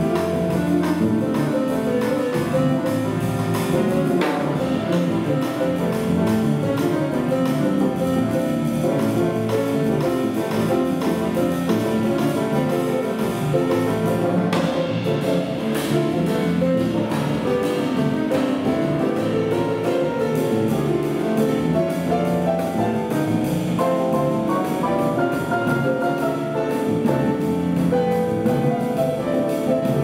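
A jazz quartet playing live: guitar lines over a drum kit, many quick notes at an even level, with a few sharp drum or cymbal hits along the way.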